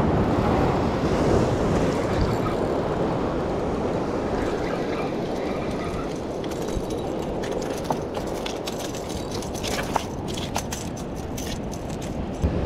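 Wind buffeting the microphone over waves washing against jetty rocks, a steady rushing noise. In the second half come a few light, sharp clicks.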